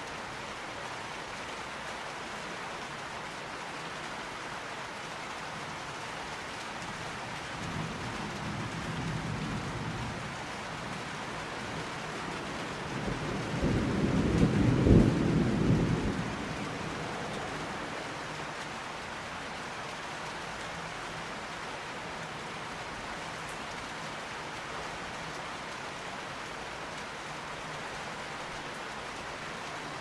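Steady rain falling, with two rolls of thunder: a low rumble about a quarter of the way in, then a louder, longer roll of thunder near the middle that dies away over a couple of seconds.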